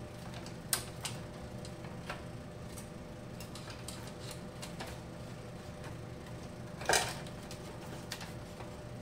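Small clicks and taps of wires and plastic connectors being handled inside the opened metal chassis of a Zimmer ATS 2000 tourniquet unit, with a sharper click near the start and a louder brief scrape about seven seconds in, over a steady low hum.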